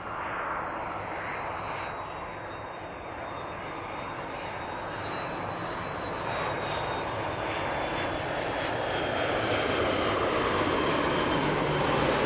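Airbus A330 jet airliner on final approach with landing gear down, its twin engines rushing with a thin high whine on top, growing steadily louder as it closes in.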